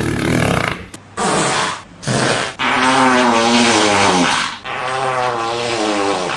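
Fart sound effects: a few short farts in the first two and a half seconds, then one long fart of nearly four seconds whose pitch wavers up and down.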